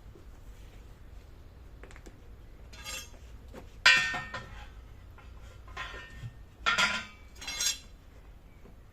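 Metal tools or parts being handled and set down: a series of sharp metallic clinks and clanks with a short ring, the loudest about four seconds in.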